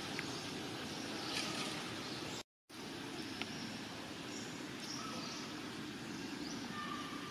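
Steady outdoor background noise with a few faint, short high-pitched chirps; the sound cuts out completely for a moment about two and a half seconds in.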